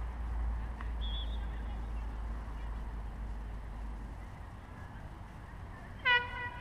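Low wind rumble on the microphone for the first few seconds, then near the end a single loud, short honk that bends down slightly at its start and then holds steady for about half a second.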